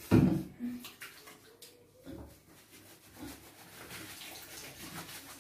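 Wet splashing and rubbing in a bathtub as a wet cat's fur is lathered with shampoo by hand, with a loud thump near the start.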